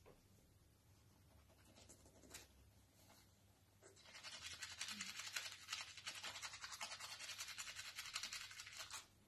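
Toothbrush scrubbing teeth in quick back-and-forth strokes. It starts about four seconds in after a few faint scrapes, and stops abruptly about a second before the end.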